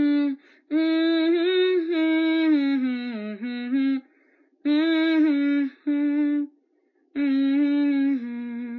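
A woman humming a slow melody unaccompanied, in several held phrases with short breaks between them.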